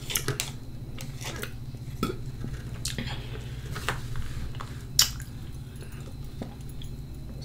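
A metal spoon scrapes and taps in a small plastic cup of applesauce, with soft close-up eating and lip sounds. There are several sharp clicks, the loudest about five seconds in, over a steady low hum.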